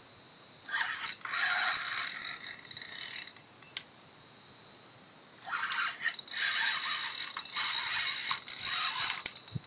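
Spinning fishing reel being cranked, a mechanical ratcheting whirr of its gears, as line is wound in against a hooked eagle ray. It comes in two long spells: from about a second in to about three and a half seconds, then again from about five and a half seconds on.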